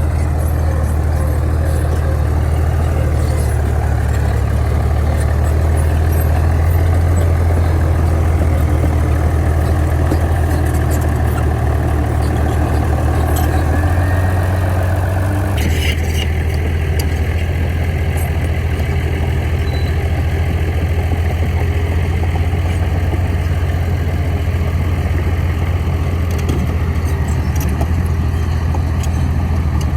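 Bulldozer's diesel engine running steadily with a deep, low drone, its sound shifting abruptly about halfway through.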